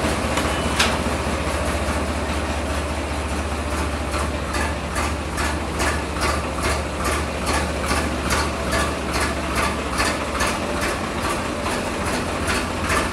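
Diesel farm tractor engine running steadily at low revs. From about four seconds in, a regular ticking comes through at roughly three clicks a second.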